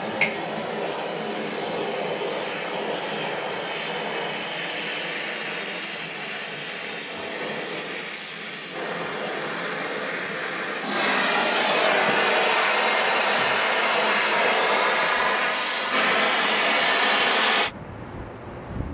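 Steady rushing noise of a motor moving air, getting louder about eleven seconds in and cutting off suddenly near the end.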